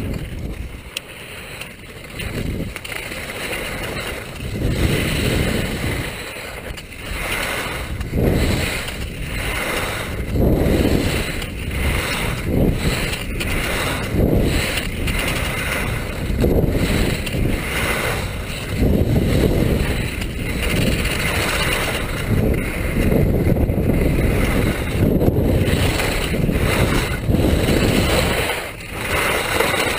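Touring skis running downhill on snow: a rushing scrape of the ski bases and edges on the snow mixed with wind buffeting the microphone, swelling and easing about every one to two seconds as the skier turns.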